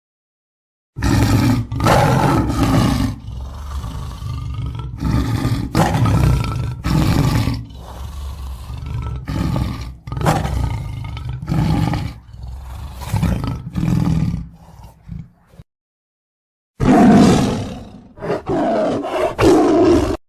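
Lion roaring: a long bout of repeated, loud roars that starts about a second in, stops for about a second, then resumes with another bout near the end.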